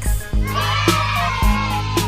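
A crowd of children cheering and screaming, many high voices at once. Underneath runs a low steady bass tone, with a thump about once a second.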